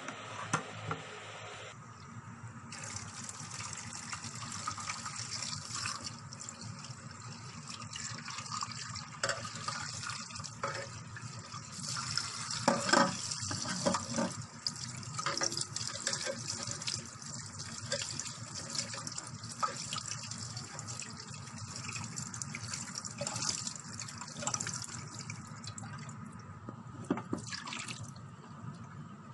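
Tap water running into a steel kitchen sink, rinsing rice in a mesh strainer: a steady splashing hiss that starts about three seconds in and eases off near the end, with a few clatters about halfway through.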